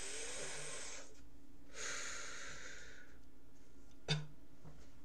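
A man breathing heavily as he drinks from a bottle: two long, breathy breaths, the second about two seconds in. A single sharp knock follows about four seconds in.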